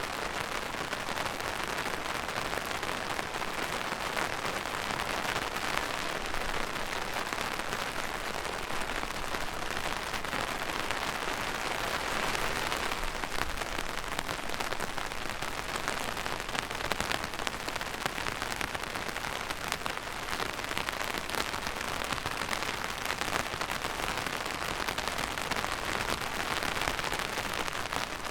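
Steady rain falling on a surface: a dense, even hiss made of countless small drop impacts, with no letting up.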